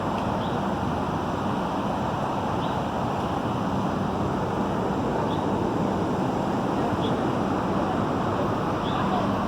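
Chicago 'L' elevated electric train standing at the platform just after stopping: a steady rumbling hum and noise, with a few faint short high chirps every couple of seconds.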